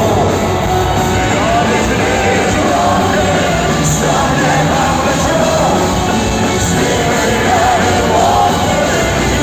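Loud live punk rock music from a band on stage, a wavering melody line carried over the full band.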